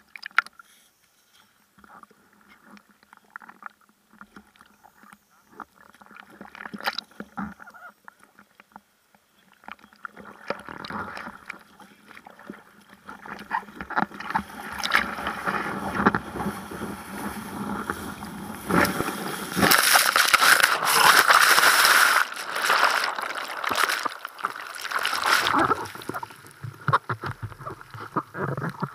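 Sea water lapping and sloshing against a bodyboard close to the microphone, with small drips and ticks, then a rising rush of surging ocean water that grows loud about two-thirds of the way through and becomes foaming whitewater churning around the board, easing a little near the end.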